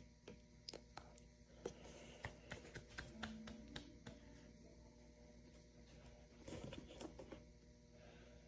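Near silence: room tone with faint scattered clicks and taps in the first few seconds and a brief soft rustle later on.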